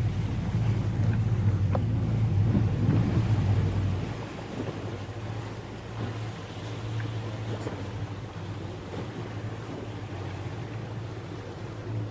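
Speedboat engine running with a low steady hum, louder for the first four seconds and then easing down to a quieter idle, over the wash of sea water.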